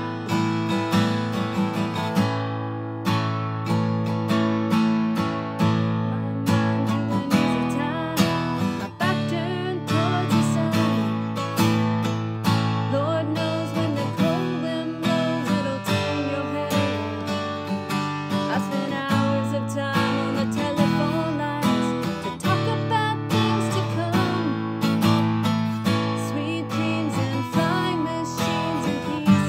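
Alvarez steel-string acoustic guitar strummed in a steady rhythm, with a woman's voice singing along in places.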